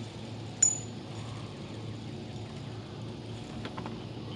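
Spinning reel's drag giving a brief high-pitched zip about half a second in, as a hooked bass pulls line against light 8-pound line, over a low steady hum.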